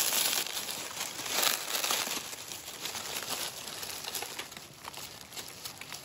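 Dry leaf litter and a thin plastic bag rustling and crinkling as hands pick through the leaves, in irregular bursts that are loudest in the first two seconds and die down toward the end.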